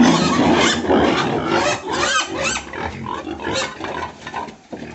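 Several pigs squealing and grunting over one another. The calls are loudest in the first two and a half seconds and thin out toward the end.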